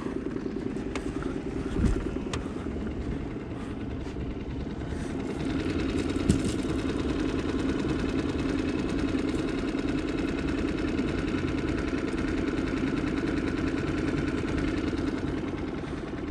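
A boat engine running steadily on the water, growing a little louder about five seconds in, with a few light knocks over it.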